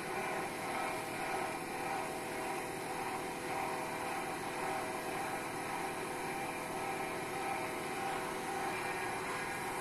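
Wood lathe running at a steady speed while sandpaper is held against the spinning wooden spindle: an even motor hum with a sanding hiss over it.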